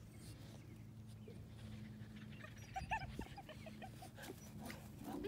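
North American Mastiff puppies whimpering and yipping in a quick string of short, high calls a little under three seconds in, over a low steady hum.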